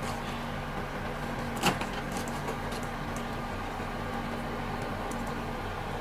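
Knife slicing fish fillet on a plastic cutting board, with one sharp knock of the blade on the board about a second and a half in, over a steady low hum.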